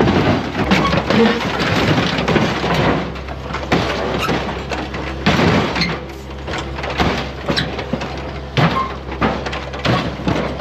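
Excavator crushing a car: irregular crunching and breaking impacts of metal and glass over the steady low running of the excavator's engine.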